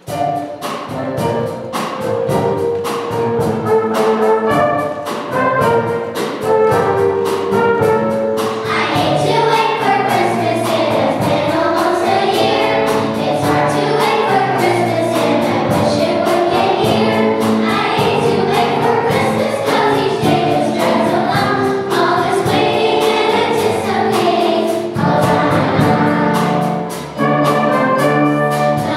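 Children's choir singing with instrumental accompaniment; the accompaniment plays an introduction on its own, and the children's voices come in about eight seconds in.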